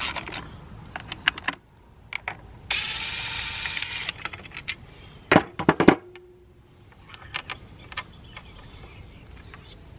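Cordless impact driver running for about a second and a half, backing out Torx screws from the housing plate of a DeWalt circular saw, followed a couple of seconds later by a quick cluster of sharp metallic clinks of tools and small parts being put down. A few light clicks of a hand Torx wrench come before it.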